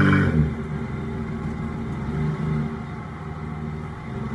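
2003 Nissan Altima 3.5's VQ35DE V6 running through an exhaust with the muffler removed. It drops back from a rev to idle in the first half second, then idles steadily, with a light blip about two seconds in.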